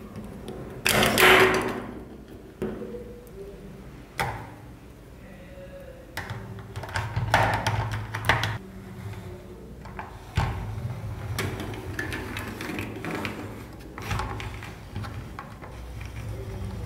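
Hard plastic toy parts knocking, clicking and scraping as an Octonauts figure is handled and pushed into the cab of a plastic toy excavator, with a longer scrape about a second in.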